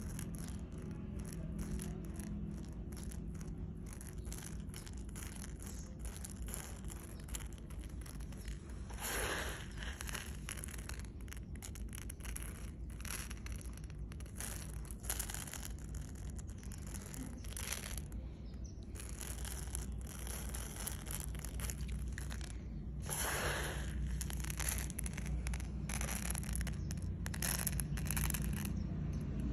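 Dry grains of parboiled Super Fine sella basmati rice falling from a hand onto a pile of rice, a patter of many small clicks and rustles, with two louder swishes about a third and about three quarters of the way through. A low steady hum runs underneath.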